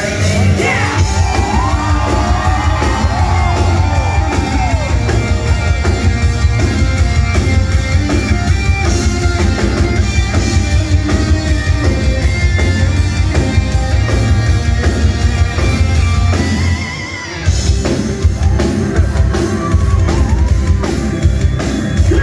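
Power metal band playing loud and live through a venue PA, with dense, fast drumming, heavy bass, guitars and keyboards, heard from within the crowd. Voices sing over it in the first few seconds, and the band breaks off for a moment about three-quarters of the way through before crashing back in.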